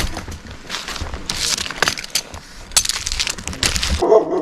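Pine bark crunching and scraping under a tree climber's gloves, rope and boots while he climbs the trunk: an irregular run of sharp cracks and scrapes.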